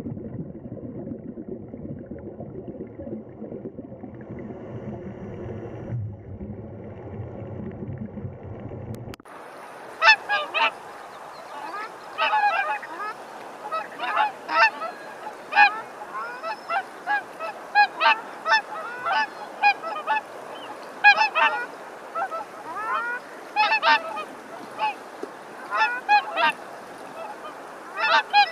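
A steady low underwater rumble for about nine seconds, then it cuts off sharply and Canada geese honk over and over, a call every second or so, often in quick pairs.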